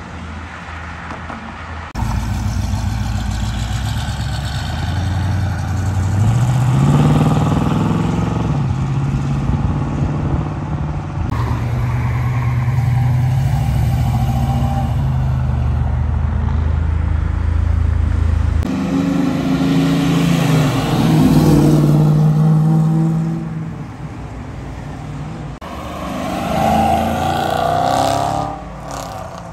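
Several Chevrolet Camaros in turn pulling away and accelerating hard, among them a second-generation Camaro Z28 with its V8 and a fifth-generation Camaro. Each engine revs up as it pulls away, with the pitch climbing a few times. The sound changes abruptly as one car gives way to the next.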